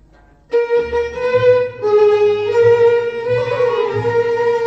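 An Arabic orchestra's violin section plays a held melodic phrase of an instrumental passage. It comes in about half a second in after a brief pause, shifts to a new note about two seconds in, and has low string notes beneath.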